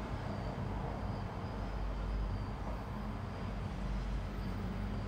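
Steady low rumble and hiss of background noise, with no distinct event.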